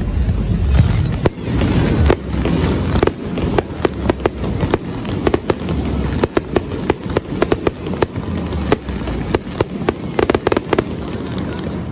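Aerial fireworks display: deep booms of bursting shells under a string of sharp, irregular cracks and pops, with a dense rapid cluster of cracks near the end.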